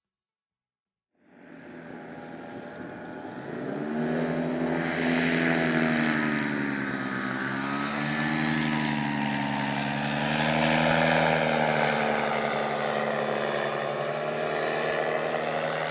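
After about a second of silence, a paramotor's two-stroke engine and propeller fade in and drone steadily as it flies low past, the pitch sagging and rising as the throttle and distance change.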